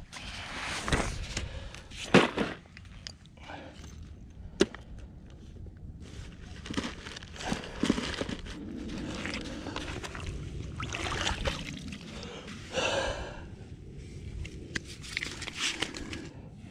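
Handling noise: rustling and sharp clicks of gear being pulled from a sling bag, with footsteps on sand.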